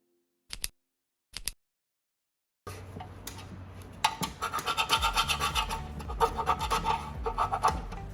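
Two short sharp clicks, then, about two and a half seconds in, a fast run of rough scraping strokes begins, like a scraper or brush being worked hard back and forth over a surface.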